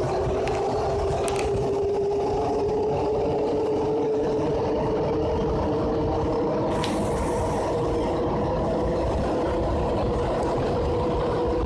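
Paris Métro Line 14 MP89CA rubber-tyred train running in a tunnel, heard from inside the car: the traction motors give an odd-sounding whine that slowly rises in pitch as the train picks up speed, over a steady low rumble of the running gear. A short hiss about seven seconds in.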